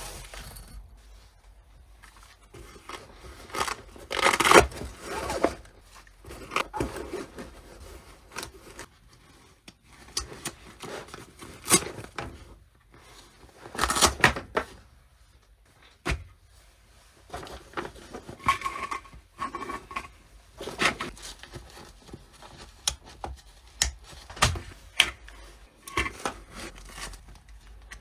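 Handling noises from a padded fabric rifle carrier bag worked by gloved hands: fabric rustling and scraping, with several louder bursts and a few sharp clicks.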